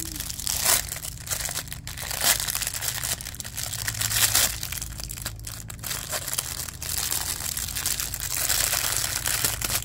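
Thin clear plastic packaging bag crinkling and crackling as it is handled, a silicone mold being worked out of it. A steady crinkle runs through it, with a few sharper crackles.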